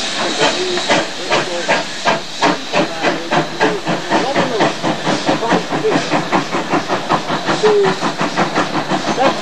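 GWR 57xx-class 0-6-0 pannier tank steam locomotive working under steam: a quick, even run of exhaust chuffs, about three to four beats a second, over a steady steam hiss.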